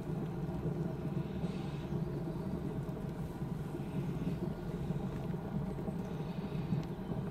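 Wort at a rolling boil in a Buffalo electric boiler, a steady low rumbling bubbling.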